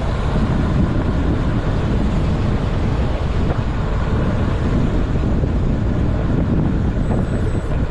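Wind buffeting the camera microphone during a fast downhill ride: a steady, loud rumbling rush, heaviest in the low end.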